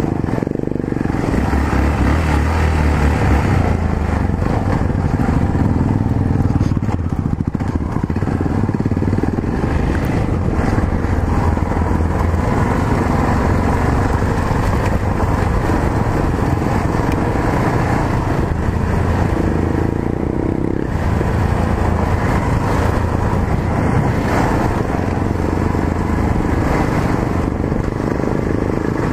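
Yamaha XT 660Z Ténéré's single-cylinder engine running steadily while the bike is ridden, with a continuous rush of wind and road noise over it.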